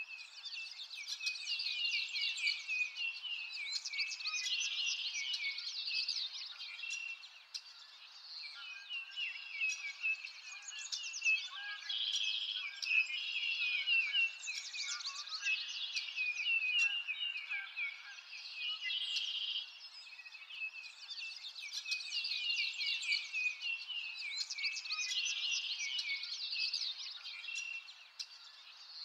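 Many small birds chirping and trilling, their calls overlapping without a break.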